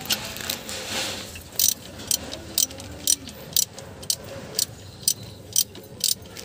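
Socket wrench ratcheting in short back-and-forth strokes as it loosens the timing-belt tensioner bolt, a sharp click about twice a second.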